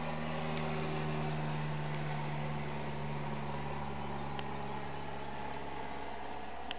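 An engine running steadily, a low hum that weakens after about five seconds.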